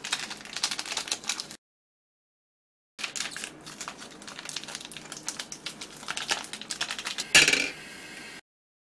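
Fine crackling and ticking from a hot electric pan of simmering instant noodles as curry powder seasoning is sprinkled on from foil sachets, with a louder crinkle of a sachet being shaken out near the end. The sound cuts out completely for about a second and a half shortly after the start, and again just before the end.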